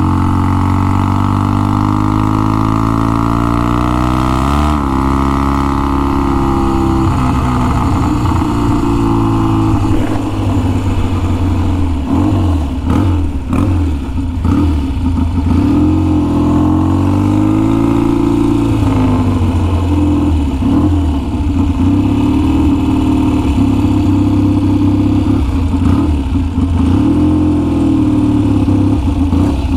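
1966 Triumph Bonneville T120TT's 650cc twin engine running through its big pipes while being ridden. Its pitch falls, then rises and falls again several times as the throttle is opened and closed.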